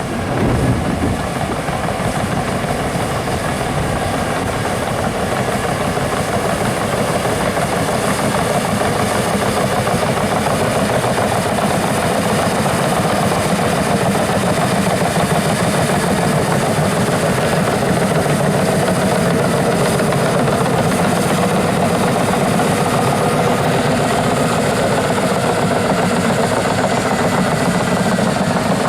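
Caterpillar D6N LGP bulldozer's diesel engine running steadily as the dozer pushes peat, growing slightly louder after the first few seconds.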